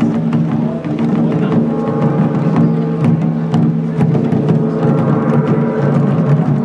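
Japanese taiko drums being played in a continuous rhythm, sharp drum strikes over sustained pitched tones.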